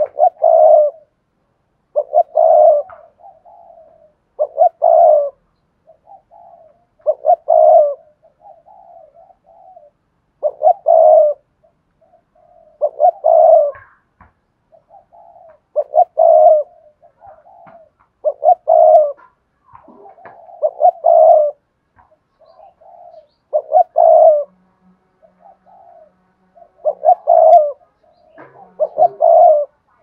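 Spotted dove cooing in its cage, repeating a loud coo phrase roughly every two to three seconds with softer coos between.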